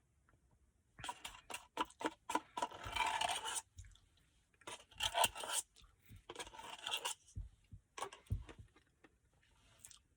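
Close-miked eating of a Royal Ultimate Choco Brownie Blizzard: crunching, scraping and clicking mouth and cup sounds in several bursts with short pauses between.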